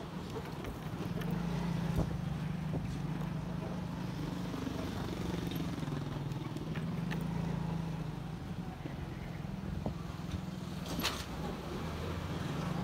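Engines of slow-moving vehicles in a narrow street: a car's low, steady engine hum as it passes close, and motor scooters near the end. A sharp click about eleven seconds in.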